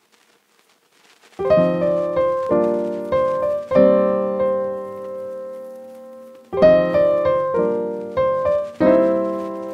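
Background piano music: near silence for about the first second and a half, then struck chords that ring out and fade. A new chord comes roughly every half second, with one long held chord in the middle.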